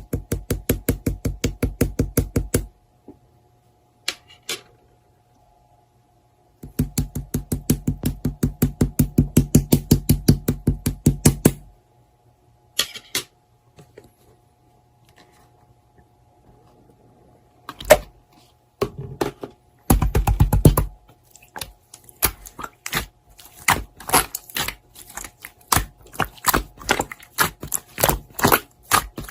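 Slime being pressed and squeezed by hand, making rapid runs of small clicks and pops, about nine a second. Two runs of several seconds, then scattered single pops, a short dense burst and irregular clicking near the end.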